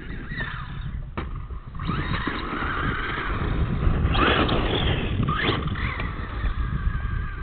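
Radio-controlled truck's motor whining, its pitch rising and falling as it speeds up and slows, with a couple of louder rushes as it passes close and throws up sand. Wind rumbles steadily on the microphone underneath.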